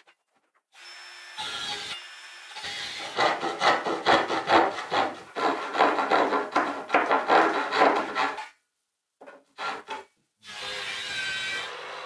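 Handsaw cutting plywood in quick back-and-forth strokes, about three a second, for roughly five seconds. Near the end an electric jigsaw starts cutting the plywood with a steady running sound.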